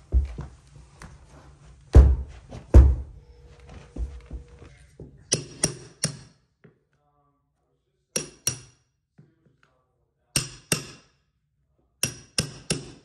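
Heavy knocks and thuds for the first few seconds, then sharp staple-gun shots in quick groups of two to four, a couple of seconds apart, as a carpet runner is stapled to the stairs.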